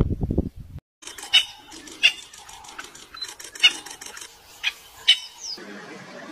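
A brief low rumbling noise at the very start, then a series of short, sharp, high-pitched animal cries, about five, at irregular intervals.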